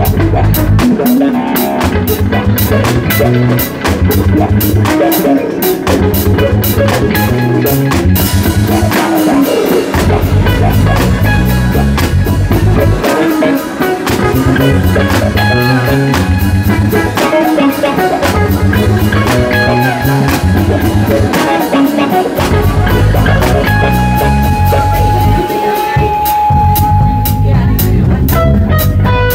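Live instrumental rock jam by a full band: Gretsch drum kit keeping a steady beat, electric guitar, electric bass and keyboards including a Nord Electro. One note is held for a few seconds near the end.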